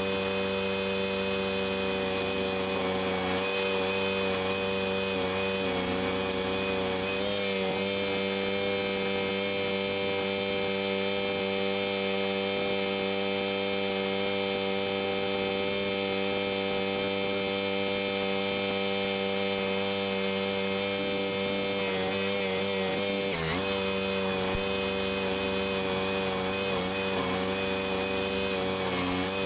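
Barreto track-driven stump grinder's gas engine running steadily at high speed, with its pitch dipping briefly about 7 and 23 seconds in.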